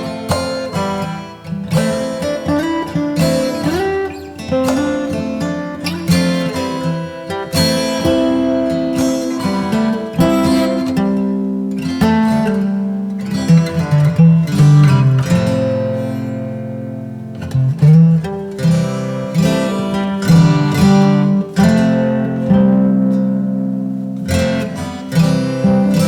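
Background music: acoustic guitar, plucked and strummed, with a steady flow of notes.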